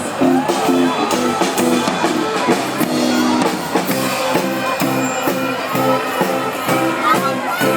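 Music with a steady drum beat and short repeated notes, over the voices of a crowd and children.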